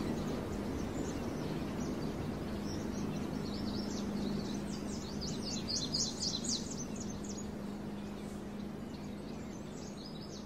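Outdoor ambience: a steady background hiss with a low hum, and a flurry of quick, high bird chirps in the middle. It all fades out near the end.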